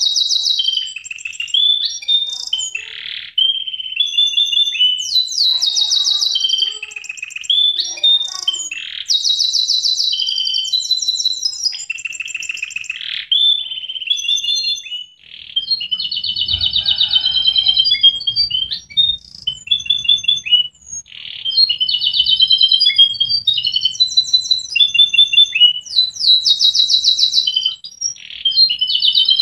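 Domestic canary singing a long, continuous song of fast trills and rolling phrases mixed with clear whistled notes, with a short break about halfway.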